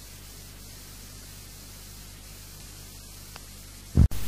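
Steady background hiss with a low mains hum from an old recording during a pause in speech. About four seconds in there is a short loud thump, and the hiss then comes back noticeably louder, the mark of an edit or splice in the recording.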